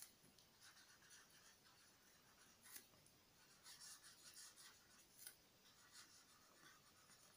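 Pen writing on paper: faint, short scratching strokes as words are written out by hand, with a few small ticks.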